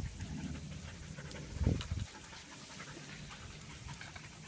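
Puppies panting, with a short low thump about one and a half seconds in.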